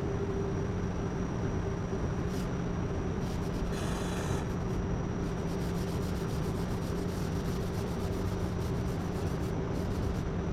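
Power sander running steadily, sanding body filler on a car's lower quarter panel, with a constant motor hum under the scratchy sanding noise. There is a brief sharper scraping about four seconds in.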